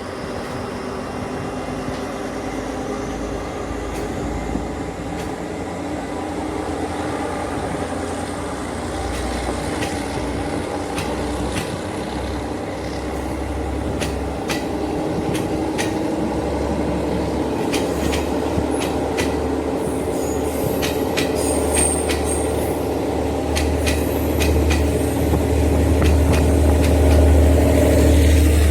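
Train running on the track, with a steady engine drone and a low rumble that grows louder toward the end. Through the middle there is a run of sharp clicks from the wheels and rails.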